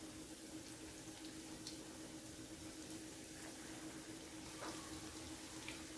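Mysore bondas deep-frying in hot oil in a kadhai: a faint, steady sizzle of bubbling oil with a few small pops, over a faint steady hum.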